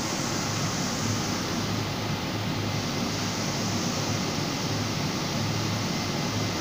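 High-frequency vacuum wood dryer running: a steady, even machine noise with a constant low hum underneath.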